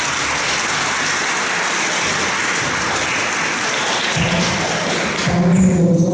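Audience applauding, the clapping stopping about five seconds in as a low steady tone comes in.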